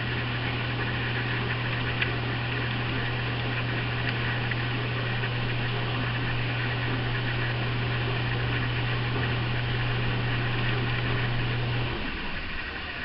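Steady low mechanical hum with a hiss over it, which cuts off about a second before the end.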